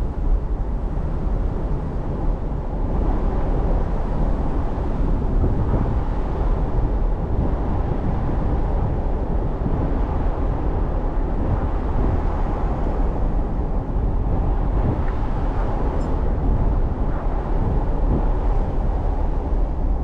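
A car driving along: steady road and engine noise with a deep, even rumble.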